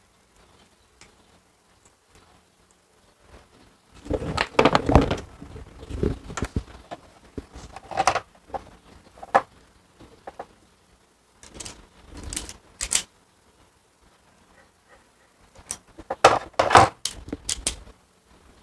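Hand tools and wiring being handled: irregular clusters of sharp clicks and clatter from pliers, a crimping tool and plastic parts, starting about four seconds in with a last burst near the end.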